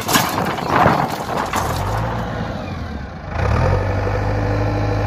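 JCB backhoe loader's diesel engine running, with knocks and clatter in the first second and a half. Its steady engine hum comes in about two seconds in and grows louder after three and a half seconds.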